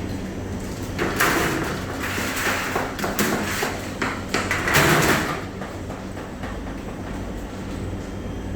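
Sweet potato paste moulding machine running with a steady low hum; from about a second in to about five seconds in, louder rough, hissing noises come and go over it.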